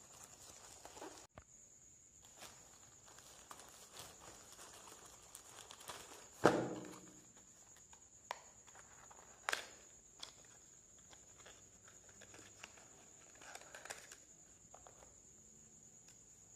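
Hands handling plastic packaging: quiet rustling and crinkling of a bubble-wrap mailer and a small packet, with scattered clicks and taps. One sharp knock, much the loudest sound, about six and a half seconds in. A faint steady high whine runs underneath.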